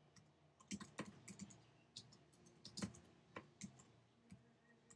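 Faint computer keyboard typing: a dozen or so soft keystroke clicks at an uneven pace.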